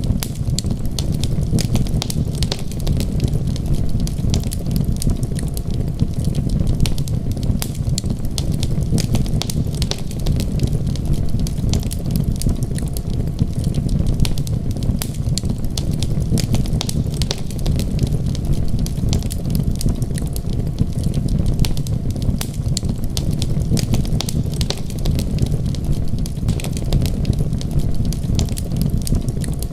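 Wood fire crackling with many small sharp pops and snaps over a steady low rumble of rain and storm.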